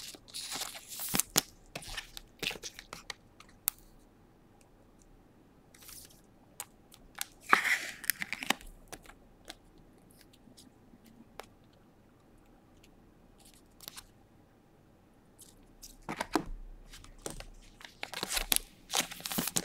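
Clear plastic card sleeves rustling and crinkling, with scattered small clicks, as a trading card is slipped into a soft penny sleeve and then a rigid top loader; it goes quiet for several seconds in the middle.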